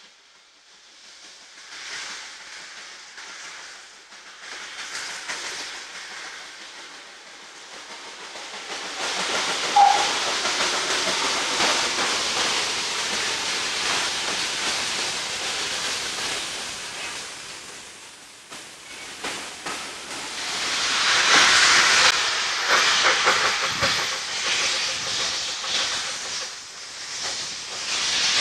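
Steam tank locomotive standing at a platform, steam hissing steadily, with one short whistle note about ten seconds in. From about twenty seconds in a louder hiss of steam blowing from its open cylinder drain cocks as it gets ready to move off.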